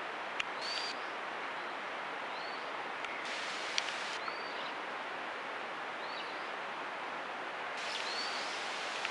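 Steady outdoor background hiss, with a bird repeating a short, high, arched chirp every second or two.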